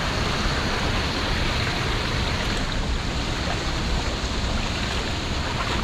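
River water flowing steadily, a constant rush of water.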